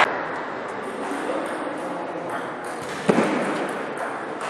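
Room sound of a large sports hall with faint distant voices, and one sharp knock about three seconds in.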